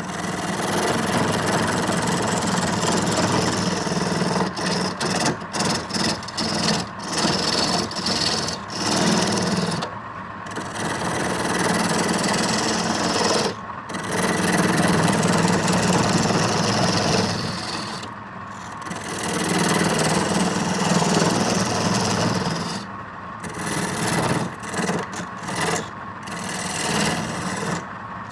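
A turning tool cutting into wood spinning on a lathe, a steady rasping scrape that breaks off briefly several times.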